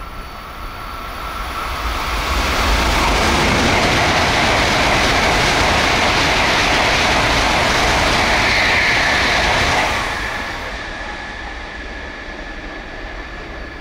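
Tokaido Shinkansen train passing at high speed, its wheels clattering over the rail joints. The sound swells over about two seconds, stays loud for about seven, then falls away about ten seconds in, its pitch dropping as it goes by.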